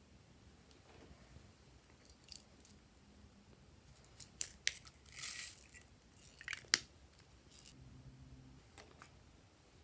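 Small sharp plastic clicks and a short crackly rustle from a pink paw-shaped plastic container being handled and worked open. The loudest snap comes a little after halfway.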